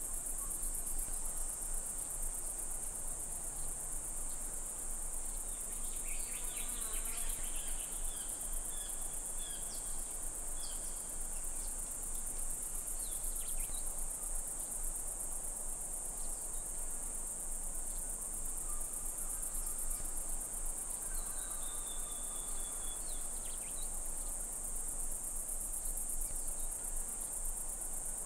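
Steady, high-pitched insect trilling with a fine rapid pulse, with a few faint short chirps now and then.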